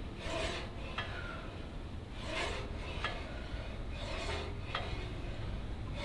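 Seated hip abduction machine worked through repetitions: a rasping stroke about every two seconds, each followed by a light click, as the pads swing out and back and the weight stack moves.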